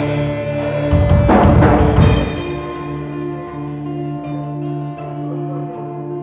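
Folk-rock band playing live: a loud drum-driven passage with heavy hits gives way about two seconds in to a quieter stretch of held pitched notes.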